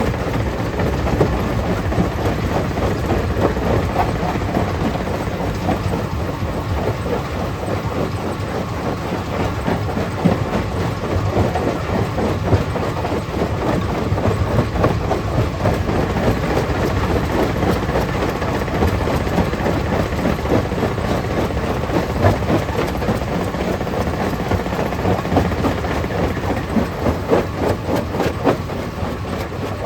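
Stone crusher plant running and crushing rock: a steady mechanical din full of dense clattering and cracking of stone.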